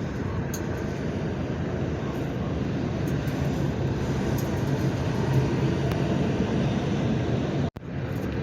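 Bulldozer's diesel engine running steadily under load, a dense low engine drone, broken off abruptly for an instant near the end.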